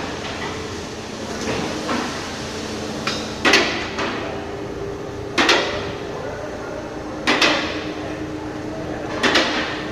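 Four sharp knocks with a short ring, evenly about two seconds apart, over a steady hum.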